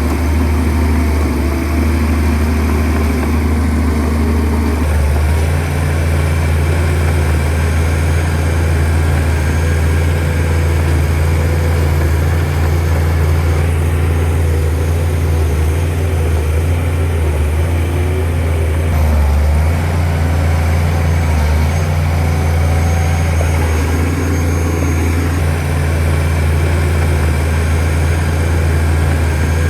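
Shantui DH17C2 bulldozer's diesel engine running steadily under work, with a low drone whose tone changes about five seconds in.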